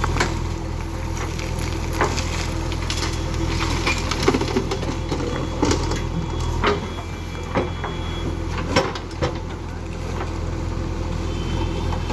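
Diesel engine of a JCB 3DX backhoe loader running steadily while the bucket loads waste into a tractor trolley. Irregular knocks and clatter from the loading, two of them louder than the rest.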